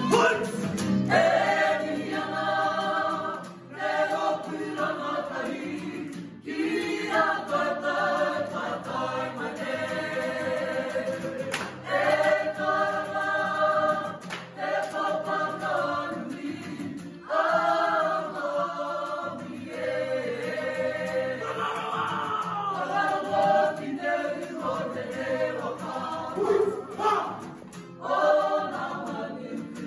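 A group of voices singing an action song together in unison phrases, with brief breaths between them, accompanied by a strummed acoustic guitar.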